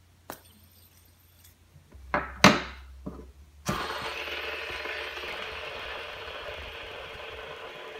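Metal EDC fidget spinner handled and set on a wooden tabletop with a few sharp knocks and clicks, the loudest about two and a half seconds in. It is then flicked into a spin about three and a half seconds in and whirs steadily on its ball bearing against the table, slowly fading.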